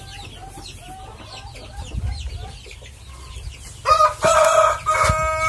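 Chickens clucking softly, then about four seconds in a rooster starts a long, loud crow with a steady held pitch.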